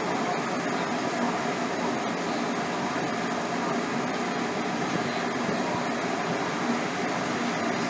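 Steady hum of a standing ČD class 380 electric locomotive's cooling fans and auxiliary equipment running.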